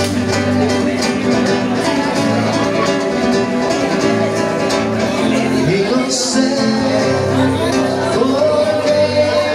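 Classical acoustic guitar played live, chords strummed in a steady rhythm with plucked bass notes. From about six seconds in, a man's voice begins singing along.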